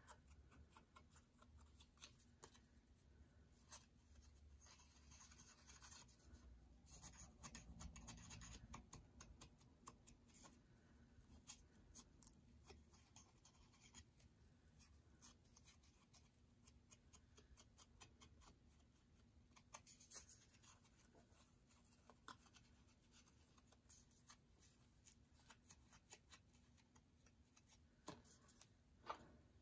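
Faint dabbing and rubbing of a round ink blending tool against a die-cut cardstock cut-out, soft scuffs and light taps with a slightly longer rub about a quarter of the way in; otherwise near silence.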